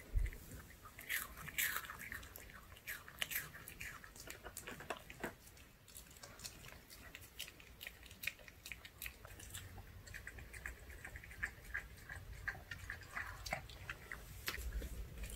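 Pomeranian dog chewing a soft dog-treat green onion pancake close to the microphone: a long run of irregular wet clicks and smacks. Near the end it licks its lips.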